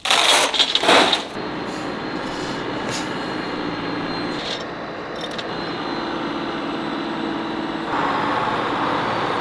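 A loud burst of noise with a few sharp knocks in the first second, then a heavy crane truck's engine running steadily. A hissing rush joins in about eight seconds in.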